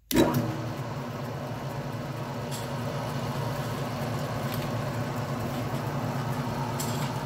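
Metal lathe switched on: the motor and belt drive start abruptly and then run with a steady hum, slowed to a low spindle speed of about 300 RPM. No cutting yet.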